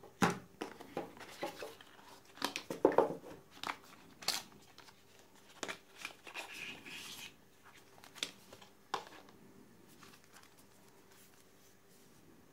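Hands handling a smartphone's cardboard packaging: scattered taps, scrapes and paper rustles as the white inner box of documents is opened and a paper booklet slid out.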